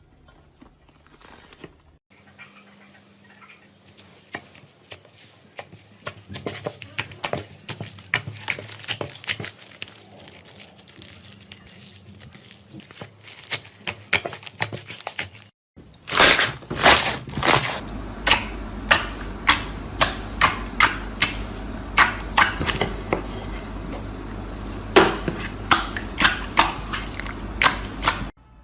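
Slime being squeezed, stretched and kneaded by hand, with wet clicking and crackling pops. About halfway through it changes to a louder batch with sharp pops coming one or two a second.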